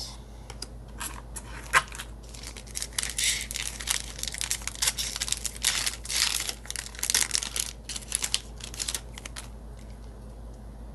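Foil trading-card booster pack wrapper being torn open and crinkled by hand, a dense run of crackling that stops a second or so before the end.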